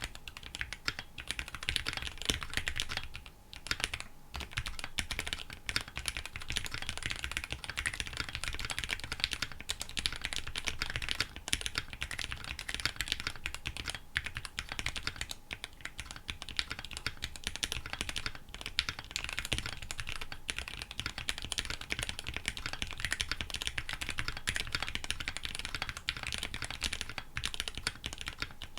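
Steady fast typing on a KBDfans D65 mechanical keyboard with Gateron Black Ink v2 linear switches and EPBT 9009 PBT keycaps: a dense run of key clacks, with a brief pause about three seconds in.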